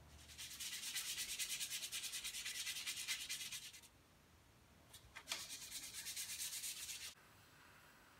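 Sandpaper on a hand sanding block rubbed quickly back and forth over the bare wood of a wooden clamp jaw. The strokes come in two bouts, with a short pause about four seconds in.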